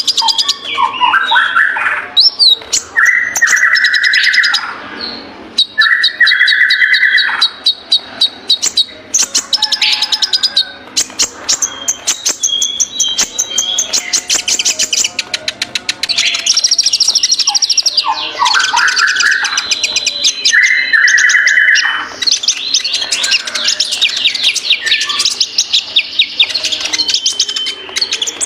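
Kolibri ninja sunbird singing energetically: fast chattering runs of sharp high ticks and chirps, broken several times by lower, drawn-out buzzy phrases.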